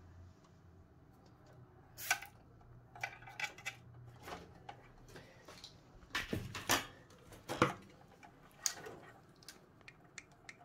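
Hands handling PC parts and power-supply cables inside a computer case: scattered clicks, knocks and light rattles. The loudest come in a cluster about six to eight seconds in.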